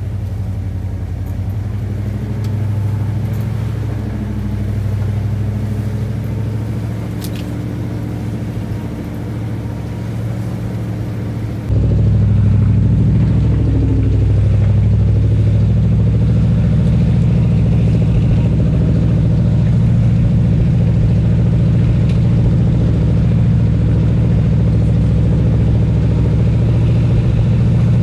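1985 Ford Bronco's engine pulling slowly at low, steady throttle through mud, heard from inside the cab as a steady low hum. About twelve seconds in, the sound cuts to a louder, steadier engine drone from the off-road vehicles crawling along the muddy trail.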